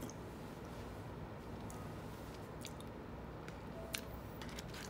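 Quiet mouth sounds of someone eating ice cream, over a low steady room hum, with a few soft clicks.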